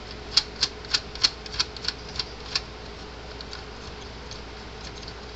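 A quick, irregular run of about nine light plastic clicks over the first two and a half seconds, as the red fence and green ground terminal knobs on an electric fence energizer are handled and turned.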